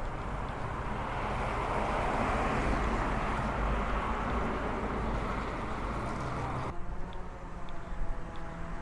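Road traffic: a car passing on the adjacent street, its tyre and engine noise swelling and then easing off. About seven seconds in the sound cuts off suddenly to a quieter street background with a few light knocks.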